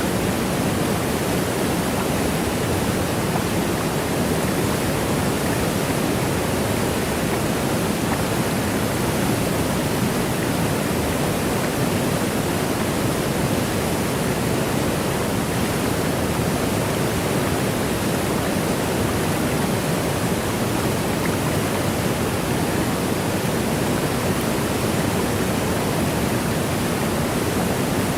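Waterfall: water rushing down steadily in an even, unbroken roar.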